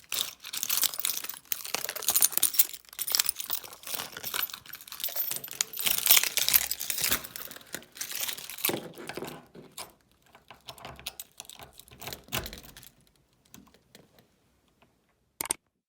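A bunch of keys being sorted through in the hands, metal keys clicking and clacking against each other. Dense rattling for about nine seconds, then a few sparse clicks that die away, with one last click near the end.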